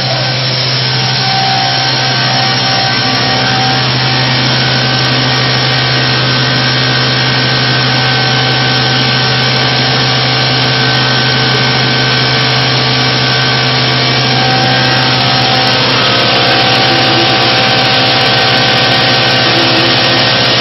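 Walinga UltraVeyor pneumatic grain conveyor, driven by a 50 hp motor, running steadily under load while conveying seed grain: a loud, constant hum with a dense rushing hiss of air and grain.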